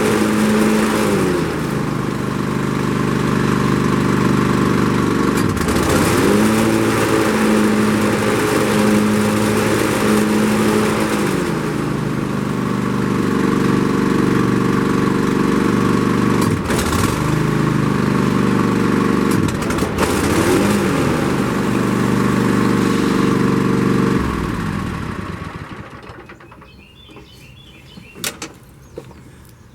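Zero-turn riding mower engine running at speed, its pitch dipping briefly and recovering four times, then shutting off about 25 seconds in. Faint birdsong and a couple of clicks follow.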